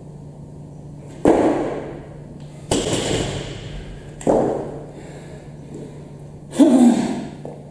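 Four separate sudden thuds and clanks, each ringing out in the hall and fading within about a second. They come from an 85 kg barbell loaded with bumper plates being squat-jerked and set back down onto wooden jerk blocks. A steady low hum runs underneath.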